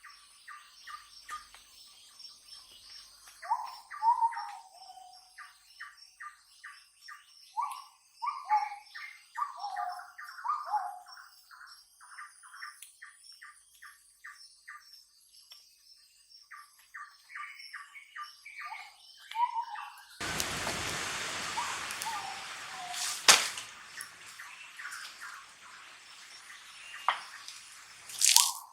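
Forest birds calling, with repeated short chirps and falling whistled notes, over a high steady tone. About twenty seconds in, a loud, steady rushing noise starts suddenly, with a sharp knock a few seconds later.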